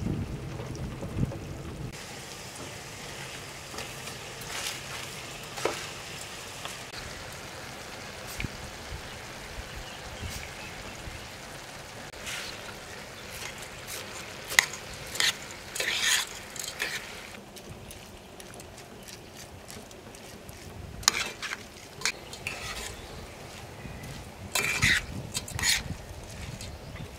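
Food sizzling gently in a steel pan, with a metal spoon scraping and clinking against the pan in several bursts as rice is stirred into the minced meat and onions.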